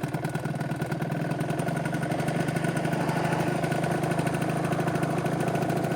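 Piaggio Typhoon scooter's two-stroke engine, bored out with a DR Evo 70 cc kit, idling steadily through a LeoVince Touring exhaust.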